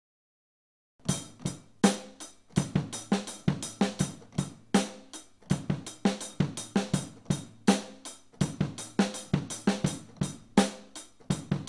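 A rock drum kit playing a solo intro beat on kick drum, snare and hi-hat. It comes in about a second in and keeps a steady, even rhythm.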